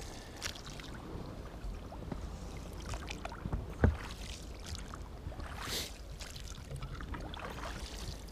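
Knocks, clicks and rustles of someone moving about in a small inflatable boat on the water, with one loud thump about four seconds in and a short swish a couple of seconds later.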